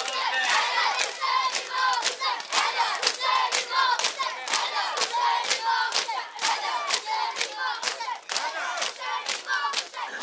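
Crowd of Shia mourners performing matam: many voices shouting together over sharp, even slaps of hands on chests, about three a second.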